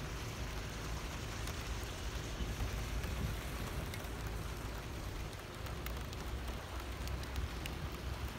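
Steady rain falling on wet pavement, a continuous hiss dotted with small drop ticks, over a low rumble.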